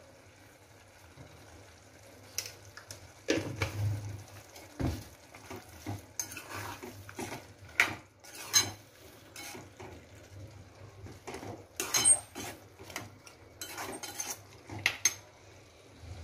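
Metal ladle stirring thick potato and pea curry in a cooking pan, with irregular clinks and scrapes of metal on the pan from a couple of seconds in until near the end.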